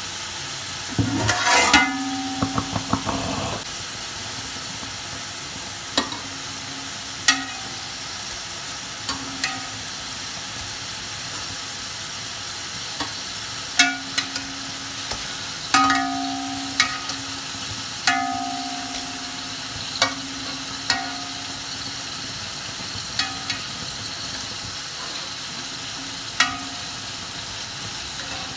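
Oil sizzling steadily in an aluminium pot of frying onions and whole spices, with a metal slotted spoon knocking and clinking against the pot every few seconds, some strikes ringing briefly.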